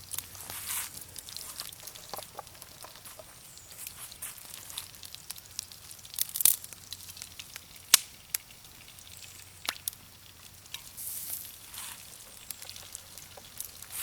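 Wood fire crackling, with scattered sharp pops and a few short hissing, rustling swishes of handling noise.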